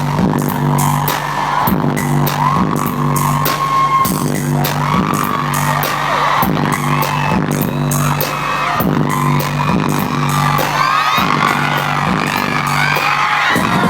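Live pop music played loud through a concert sound system, with a repeating bass line and heavy drum hits. High audience screams and whoops build over it in the second half.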